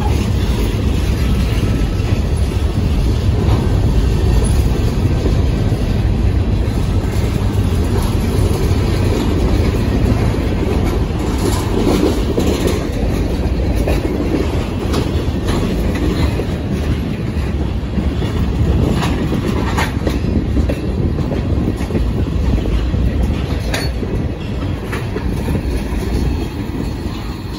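Freight train of covered hoppers and tank cars rolling past close by: a steady, heavy rumble of steel wheels on the rails with clickety-clack over the rail joints. Occasional sharp clicks and short squeaks come from the wheels, and the sound eases slightly near the end.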